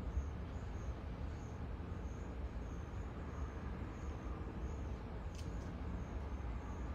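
Night-time outdoor ambience: a steady low rumble, with a faint high insect chirp repeating about every two-thirds of a second. A single sharp click comes about five and a half seconds in.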